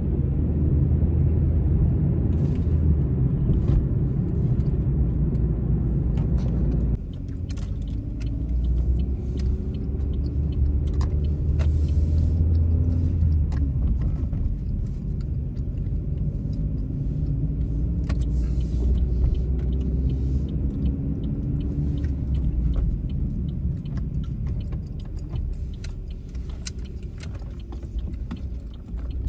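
Car driving, heard from inside the cabin: a steady low rumble of road and engine, with the engine's pitch rising a few times as it speeds up, and small scattered clicks and rattles. The rumble drops abruptly about seven seconds in.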